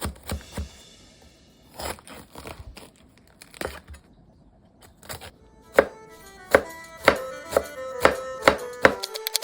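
Background music with light pitched notes about twice a second in the second half, over a few sharp knocks in the first half.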